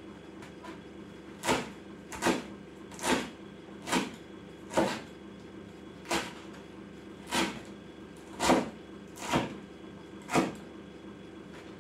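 Kitchen cleaver chopping green cabbage leaves on a wooden cutting board: ten sharp chops, about one a second, with a short pause near the middle.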